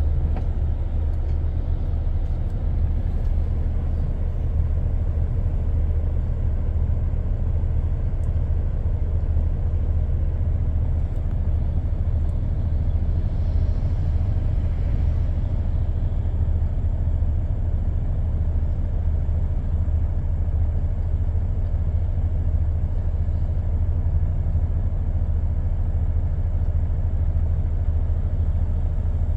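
Steady low engine and road rumble heard from inside a vehicle's cab as it creeps forward in slow traffic.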